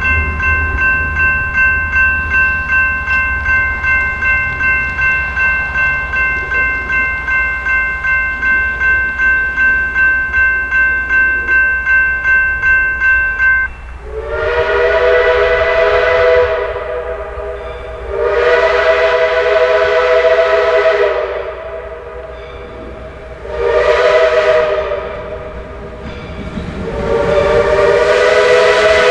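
Railroad grade-crossing bell ringing steadily at about three strokes a second, stopping about halfway through. Then Reading & Northern 425's chime steam whistle sounds the grade-crossing signal: two long blasts, a short one, and a final long blast that is still sounding at the end.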